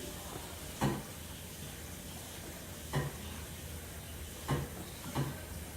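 Tap water running steadily into a sink while mixing tools are washed, with four short knocks of utensils.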